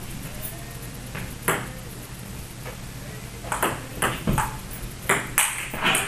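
Plastic table tennis ball clicking sharply off the table and the rubber paddles. A couple of lone clicks come first, then from about three and a half seconds in a quicker run of clicks as a serve and rally begin.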